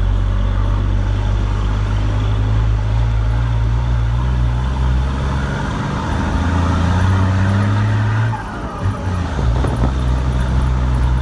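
Chevrolet Silverado's six-cylinder MWM turbodiesel running loud through a freshly made 'pente' exhaust while the truck is driven. The engine note climbs for a few seconds, drops away briefly about eight seconds in, then picks up again.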